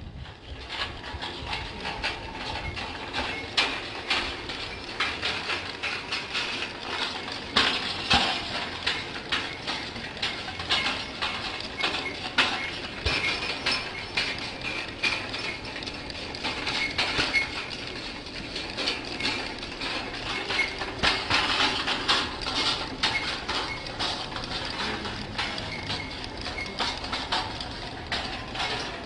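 Wire-hoop kinetic sound sculpture tumbling across paving stones, clattering and clinking irregularly throughout, with short ringing tones.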